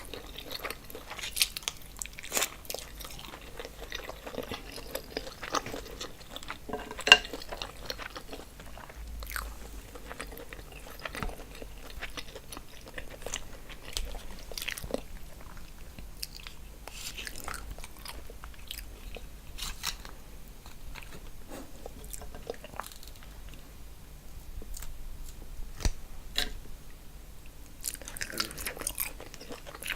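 Close-miked eating sounds: biting and wet chewing of seafood boil food such as shrimp, corn and potatoes in sauce, with irregular crunches and mouth clicks.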